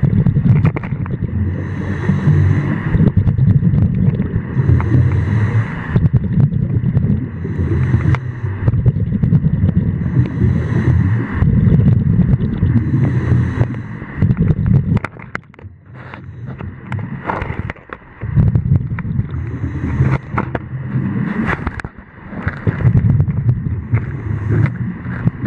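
Scuba diver's regulator breathing heard underwater: rough, bubbling rumbles of exhaled air in bursts every few seconds, with a pause of a few seconds about halfway through.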